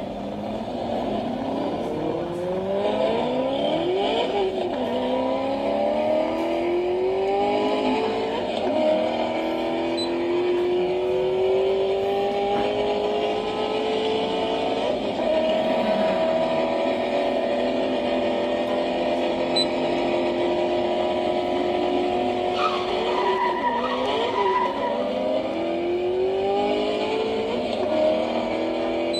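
Sports car engines revving hard through the gears, the pitch climbing and dropping back at each shift. In the middle there is one long, slow climb in a high gear, then more quick shifts near the end.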